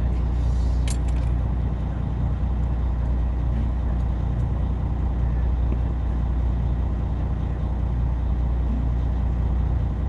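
Boat engine running steadily with a low, even hum, and a single sharp click about a second in.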